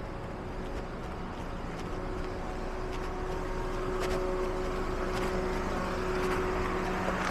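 Steady mechanical hum with several pitched tones over outdoor street noise, growing a little louder, with a few faint ticks about a second apart.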